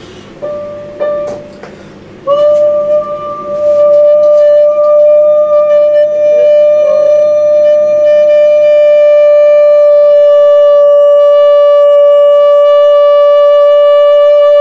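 A single high sung note, held very steadily for about thirteen seconds after a brief first start, clear and pure like a woodwind: a voice trainer giving the pitch as a sustained tone.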